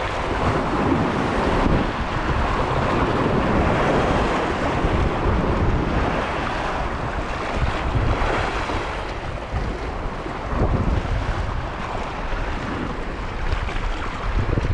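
Wind buffeting the microphone over the wash of choppy sea waves, gusting louder and softer throughout.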